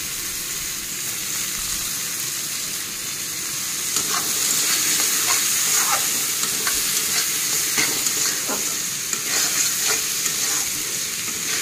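Boiled bean seeds frying in hot oil and spices in a metal kadai: a steady sizzle, with a spatula scraping and stirring against the pan. The stirring strokes get louder and more frequent about four seconds in.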